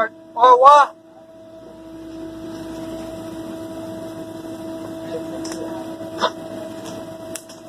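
A steady electrical hum of kitchen equipment, with a short loud vocal sound about half a second in and a few light clicks and rustles later on as foam containers are handled and plastic wrap is pulled over them.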